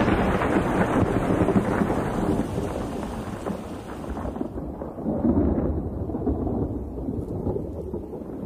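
Thunder rumbling in a long roll during a storm, easing after about four seconds and swelling again about five seconds in.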